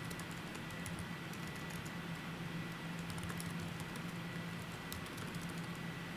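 Typing on a computer keyboard: quick, irregular key clicks, with short pauses between runs of keystrokes.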